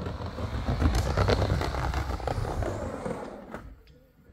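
Skateboard wheels rolling down a megaramp roll-in, a steady noisy rolling sound that fades out about three and a half seconds in.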